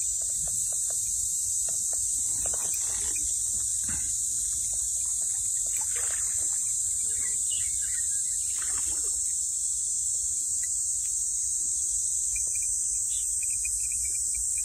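Steady, high-pitched buzzing of an insect chorus, with faint rustling of leaves and stems close by.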